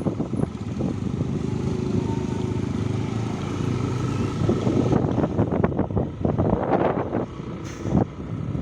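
A vehicle engine running steadily on the move, with wind gusting on the microphone, heaviest in the second half.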